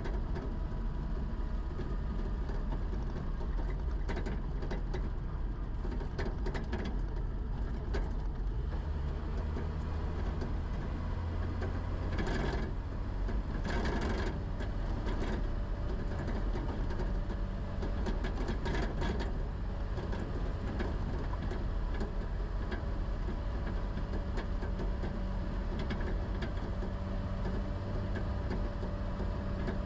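A vehicle's engine and road noise while driving along, a steady low rumble with a few steady engine tones, briefly louder about twelve and fourteen seconds in.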